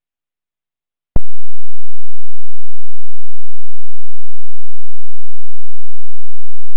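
Silence, broken about a second in by a click, followed by a steady, very loud electronic tone held at one pitch.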